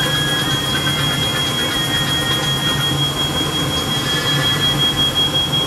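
A smoke alarm sounding one steady high-pitched tone, set off by a newly installed gas furnace burning off its oil, over the steady rush of the furnace running.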